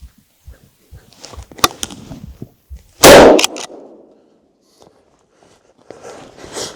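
A single hunting-rifle shot about three seconds in, by far the loudest sound, with a short echo trailing off through the woods. Soft footsteps in snow come before it, and rustling movement starts again near the end.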